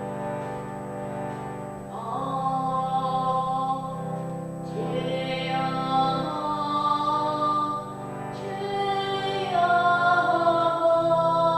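A held, wordless sung chant over a steady low drone. Each note lasts about two seconds before the voice moves to a new pitch, while the drone stays put.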